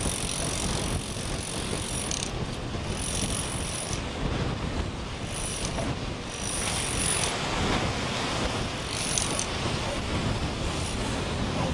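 Surf washing onto a sandy beach, with wind on the microphone. A faint high-pitched shrill sound comes and goes in short spells several times.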